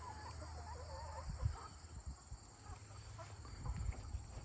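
Backyard chickens clucking softly in short wavering calls, mostly in the first second and a half, with a few scattered later.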